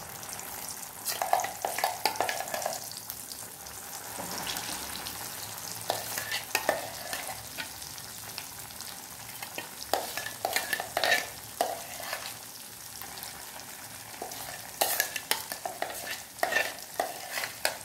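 Ground onion and ginger-garlic masala paste frying in hot oil in a kadai: a steady sizzle with scattered sharp pops and crackles coming in little clusters. The raw paste is being fried until its raw smell cooks off.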